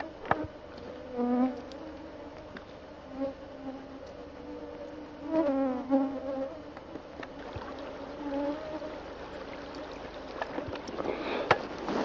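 Flies buzzing close to the microphone in passes of a second or so, their hum wavering in pitch as they fly by. Near the end a louder rush of noise with a few knocks comes in.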